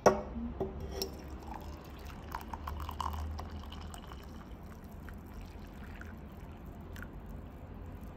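Tea being poured into a stoneware mug, a steady stream of liquid filling the cup, with a few small splashes and clinks in the first seconds. A single sharp knock sounds right at the start.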